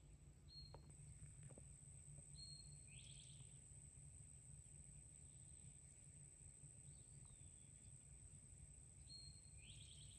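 Faint summer woodland ambience: a steady high-pitched insect drone, with a bird calling three times. Each call is a short high whistle, and the second and third are followed by a harsh, buzzy, falling phrase.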